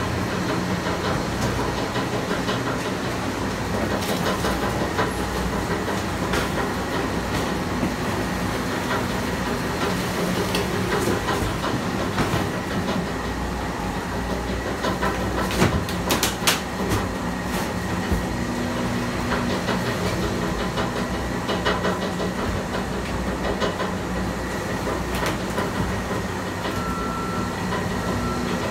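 Sani-Tech 20 HP auger compactor running, its motor and turning auger making a steady mechanical noise while cardboard crackles and snaps as it is crushed. A cluster of louder cracks comes a little past halfway.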